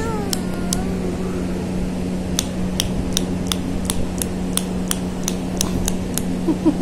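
A toddler gives a short falling coo right at the start and babbles briefly near the end. Throughout, sharp clicks come about two or three times a second over a steady low hum.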